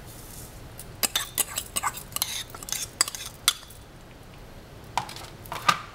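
A metal fork clicking and scraping against a small cup and a mixing bowl while knocking out the last of the wheat germ. There is a quick run of light clicks for a couple of seconds, then two more near the end.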